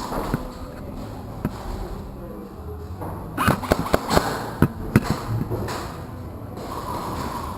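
Airsoft gunfire: a quick, irregular flurry of sharp shots and BB hits, roughly halfway through, with a few lone cracks before it.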